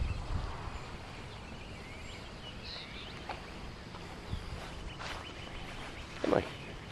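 Quiet outdoor ambience: a steady low background hiss with a few faint bird chirps about halfway through, and one brief louder sound near the end.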